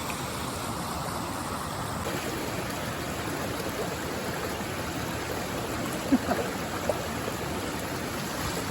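Stream water rushing steadily over rocks, with a couple of brief sharp sounds about six and seven seconds in.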